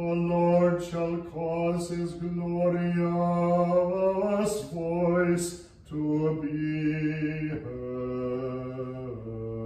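A man chanting a liturgical text on a single held reciting note. Over the last few seconds it steps down in pitch to a low closing note.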